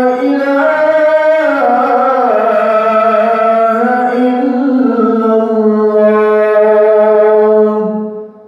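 A man chanting the adhan, the Islamic call to prayer, amplified through a microphone: one long melismatic phrase with ornamented pitch turns in its first seconds, settling into a long held note that fades out near the end.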